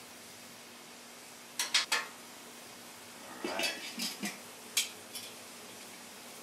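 Metal clinks and scrapes of steel spatulas and a stainless steel dome lid against a flat-top griddle. There are a few sharp clinks about one and a half seconds in, a busier run of clanks and scrapes around four seconds, and single clinks near five seconds.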